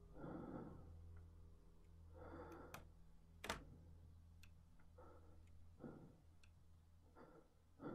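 Near silence with a low hum: faint breaths, and a doorknob latch giving a couple of sharp clicks as the door is opened, the loudest about three and a half seconds in.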